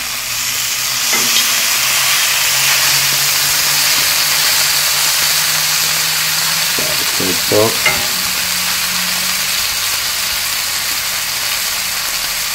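Beef steaks and sliced peppers, onions and mushrooms sizzling steadily in a hot oiled cast-iron skillet set over charcoal.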